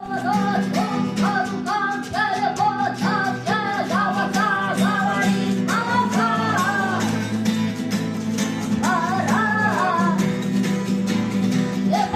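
Instrumental song intro: a guitar plays a short repeating melodic phrase over steady bass notes and a regular drum beat.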